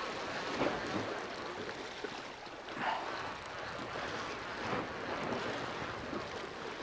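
Sea surf washing against a rocky shore, with wind on the microphone; the wash swells louder a few times, about half a second in, near three seconds and again near five seconds.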